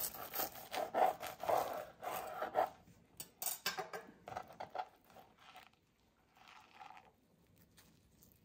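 A large knife sawing through a crisp, parmesan-crusted, butter-fried grilled cheese sandwich on a cutting board: a dense run of crunchy crackles from the toasted crust over the first few seconds, then fainter crackles as the cut halves are handled and pulled apart.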